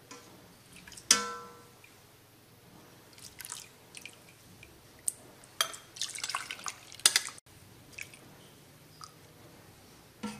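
Metal ladle working in the Instant Pot's stainless steel inner pot, scooping bean cooking liquid into a glass measuring cup: a ringing clink of metal about a second in, then scattered clinks, drips and pouring splashes.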